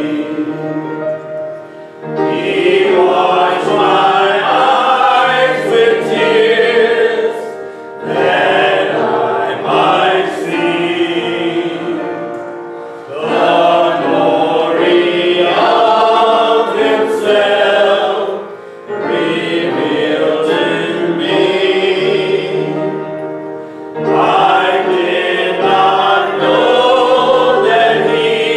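Small mixed choir of men and women singing a church song together, in phrases of about five seconds with a short breath between lines.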